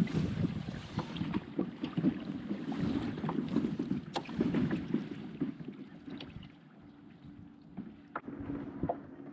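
Kayak on choppy water: wind on the microphone, water slapping the hull, and scattered small knocks and clicks of gear against the boat. It quietens about six and a half seconds in, leaving only a few clicks.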